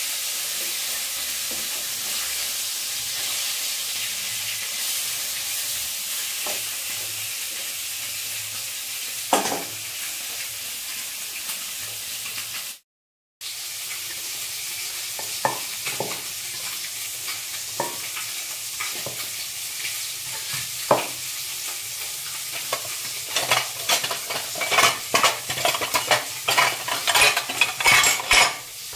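Hot oil sizzling steadily in a kadai on a gas flame as food fries and is stirred with a wooden spatula, with a single clink partway through. After a short break the sizzle goes on more quietly under a run of clinks and knocks, thickest near the end, as chopped ingredients and a utensil hit a stainless-steel mixer-grinder jar.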